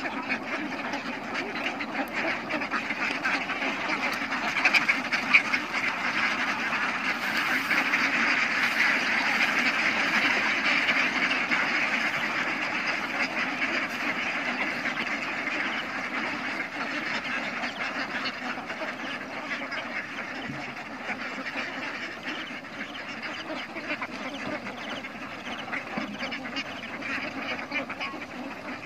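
A flock of hundreds of domestic ducks quacking all at once, a dense, unbroken din of overlapping calls that swells in the middle and eases off towards the end.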